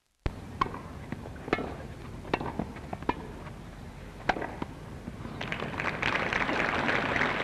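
Tennis rally: a ball struck back and forth with rackets, a sharp crack about every second over film-soundtrack hiss, then crowd applause swelling from about five and a half seconds in.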